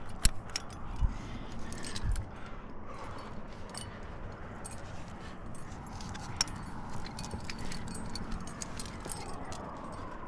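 Metal climbing gear on a trad rack, carabiners and cams hanging from the harness, clinking and jangling as the climber moves up the crack, with a few knocks in the first two seconds.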